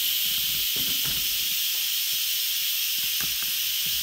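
Steam hissing steadily out of an Instant Pot Smart WiFi pressure cooker's steam-release valve during a quick release, letting the pressure down after a water test. A few faint ticks sound under the hiss.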